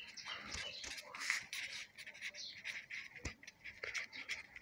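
Pencil writing on paper: short, irregular scratching strokes of the lead as words are written by hand, with a light tick about three seconds in.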